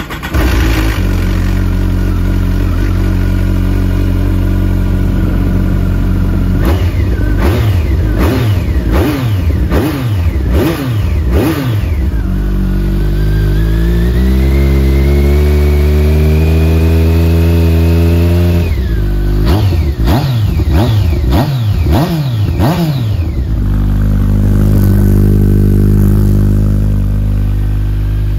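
Kawasaki ZZR1400's inline-four engine through a BlueFlame slip-on muffler, idling and then revved in neutral. A run of quick throttle blips comes first. The revs then climb slowly for several seconds and drop off sharply. After a second run of blips the engine settles back to a steady idle.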